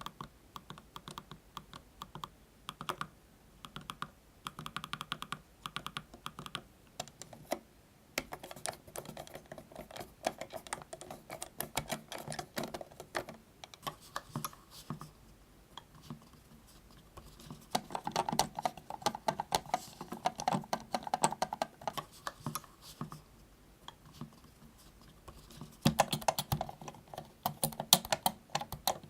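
Computer mouse buttons clicked rapidly in runs of soft clicks, with brief pauses between runs; the loudest run comes near the end.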